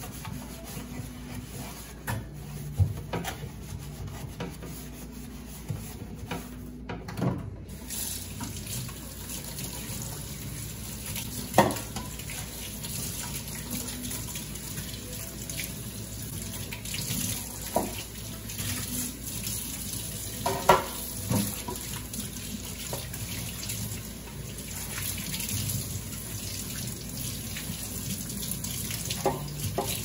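Kitchen tap running into a stainless steel sink as plastic refrigerator door shelves are scrubbed and rinsed under it, with a few sharp knocks of the plastic bumping the sink.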